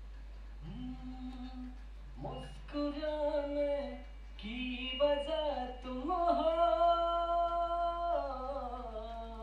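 A singing voice played back alone from a plain recording made without effects or mixing. It sings long held notes, starting about half a second in, with short breaks between phrases.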